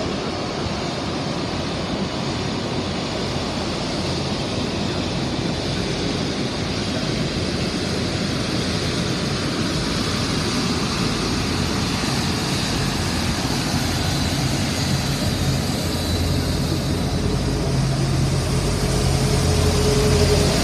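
Qantas Airbus A380's four Rolls-Royce Trent 900 jet engines running as the airliner taxis by. A steady jet rumble and hiss grows gradually louder as the aircraft draws close, with a deeper hum coming in near the end.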